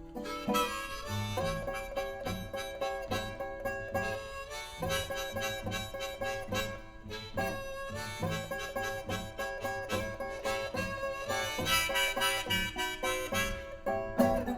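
Blues harmonica solo over guitar accompaniment, in an instrumental break of the song with no singing.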